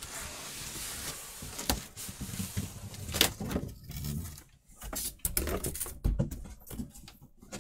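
Cardboard boxes scraping and sliding against each other as a large box is wrestled out of its shipping box, followed by a sharp knock and a run of cardboard knocks and rustles.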